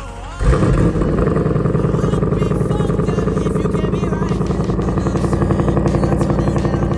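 Ford Mustang GT's 5.0-litre V8 heard through its active exhaust. It comes in suddenly about half a second in, then runs steadily at idle with a fast, even pulse.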